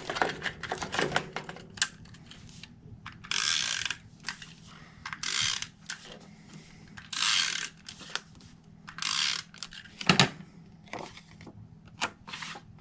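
Snail tape-runner adhesive being rolled across paper in four ratcheting strokes about two seconds apart, with light clicks and taps of handling between them.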